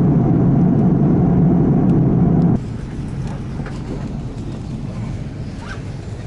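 Steady airliner cabin roar in flight, the engines and rushing air heard from a window seat. About two and a half seconds in it cuts off abruptly to the much quieter hum of the cabin on the ground, with a few faint clicks.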